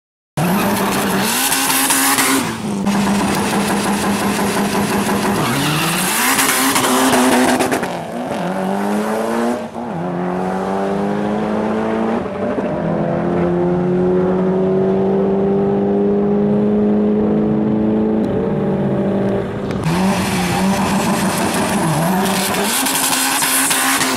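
Turbocharged four-cylinder drag cars, a Mitsubishi Lancer Evolution and a Subaru Impreza WRX, revving hard with loud rasping stretches. They then accelerate flat out, the engine pitch climbing through several gear changes and holding high.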